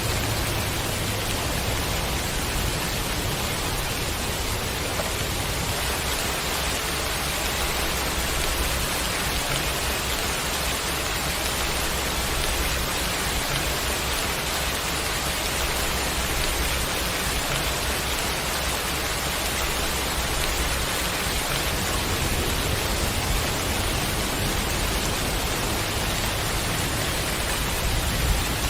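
Steady, even rushing noise of water, like rain falling or a stream running, with no let-up.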